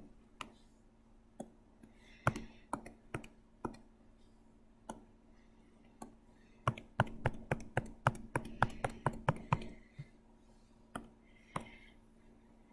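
Sharp clicks and taps at a computer: a few scattered ones, then a quick run of about four a second from about seven to ten seconds in.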